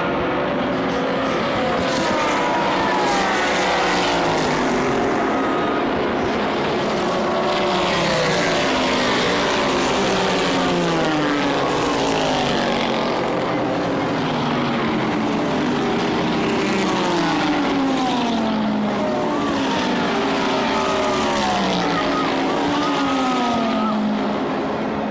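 Race cars passing at speed one after another, each engine note falling in pitch as the car goes by, with no break in the stream of cars.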